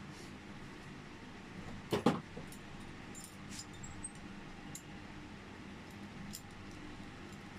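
Metal tools knocking and clicking on a Honda City lock cylinder as its pin is worked out: two sharp knocks about two seconds in, then scattered light clicks.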